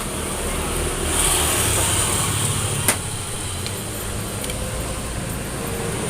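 Low, steady rumble of a motor vehicle, swelling about a second in, with a single sharp click about three seconds in.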